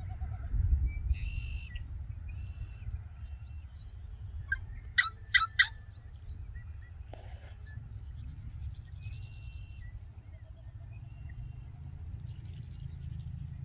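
Yellow-headed blackbird calling: three loud, harsh notes in quick succession about five seconds in, among scattered short chirps and whistles. A steady low rumble runs underneath.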